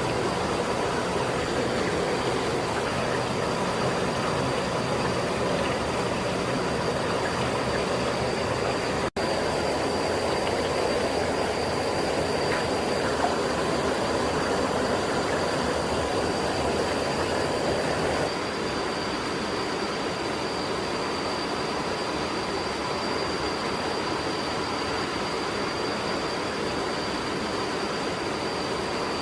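Steady rush of a shallow stream flowing over rocks, with a thin steady high tone above it. The sound cuts out for an instant about nine seconds in and drops slightly in level a little past halfway.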